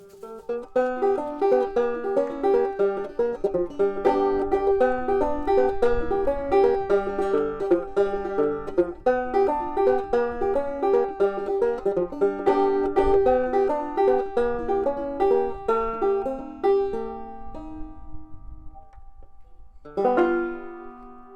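Plucked-string instrumental closing tune, a run of quick picked notes. The notes thin out near the end, then a final strummed chord about 20 seconds in rings out.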